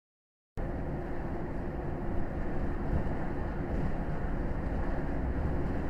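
Cab noise of a moving lorry at road speed: steady low engine drone and tyre rumble with a faint constant hum. It cuts in abruptly about half a second in.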